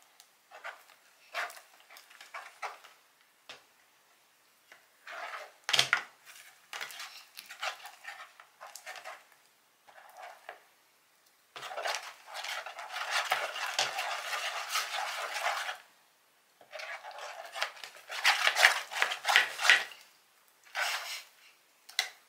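A utensil scraping and clinking in a bowl while homemade slime is mixed. It comes in short bursts, with two longer stretches of continuous scraping past the middle.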